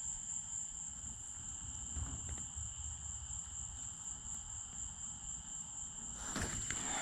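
Insects calling outdoors in a steady, high-pitched chorus over a low rumble. About six seconds in, part of the chorus stops and a rustling, handling noise starts.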